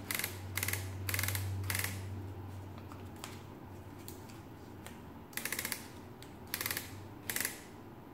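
Paper roller of a 1940s Barrett adding machine turned by hand to feed in paper, its ratchet clicking in short bursts: three quick bursts in the first two seconds, then three more near the end.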